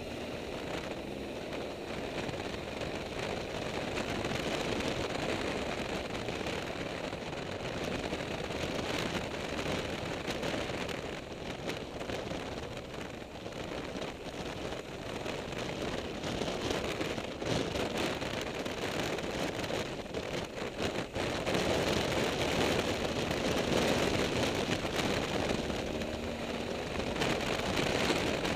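Wind rushing and crackling over a motorcycle-mounted camera's microphone, with a BMW R1200GS's flat-twin boxer engine running faintly underneath while riding.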